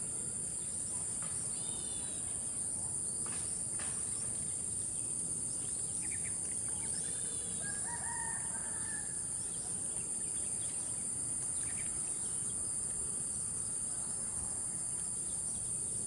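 Field ambience: a steady high insect drone, with a few short bird chirps, and a rooster crowing in the distance about eight seconds in.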